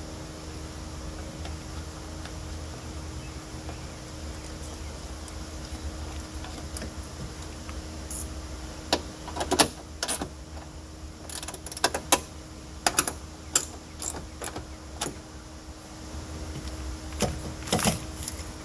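Scattered sharp clicks and taps from handling and fitting a new hatchback gas lift strut onto its mounts, coming irregularly over the second half, over a steady low hum.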